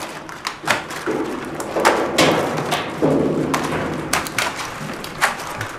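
Live blue crabs clicking and knocking against each other and the wooden bushel basket as a gloved hand rummages through them, a string of irregular sharp knocks with short rustling stretches between.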